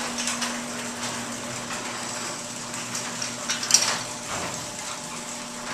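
Garage door opener running as the main garage door travels up its track: a steady motor hum under continual rattling and clattering of the door and rollers, with one sharper clack a little past the middle.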